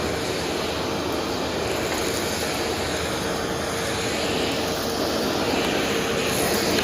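Vacuum cleaner running steadily: a constant rush of air with a steady motor tone, growing a little louder and brighter near the end.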